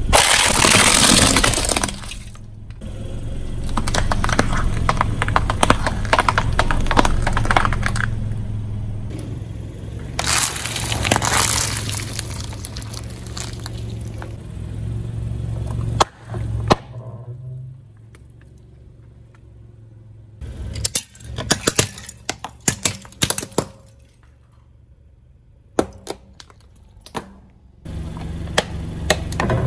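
A car tyre crushing plastic toys and packs of water beads: runs of cracking, crunching and snapping plastic, loudest in the first two seconds, with quieter spells of scattered snaps between.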